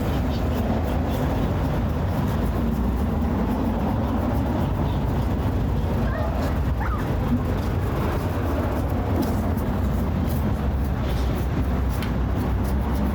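Steady rumble of busy street traffic with vehicles passing.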